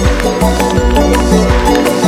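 Background music with a steady beat over a bass line.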